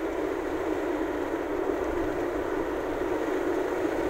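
Steady road and engine noise heard inside the cabin of a car driving at speed.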